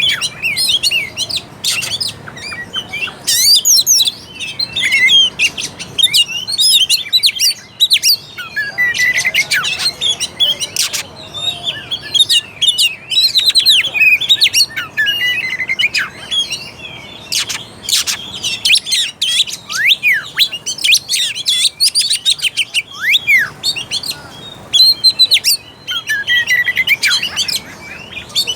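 Oriental magpie-robin (kacer) singing: a rapid, varied song of whistled glides mixed with short clicking notes, with only brief pauses between phrases.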